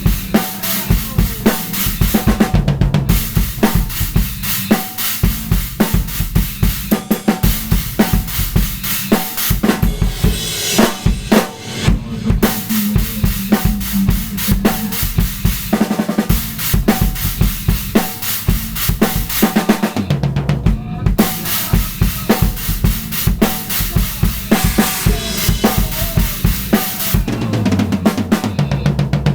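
Drum kit played in a fast, busy improvisation, with dense strokes throughout.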